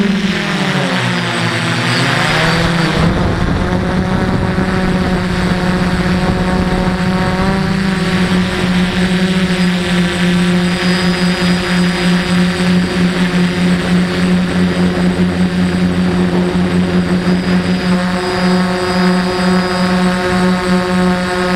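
DJI F450 quadcopter's motors and propellers whining, heard loud and close from a camera mounted on the drone. The pitch drops and climbs back over the first few seconds as the motor speed changes, then holds steady.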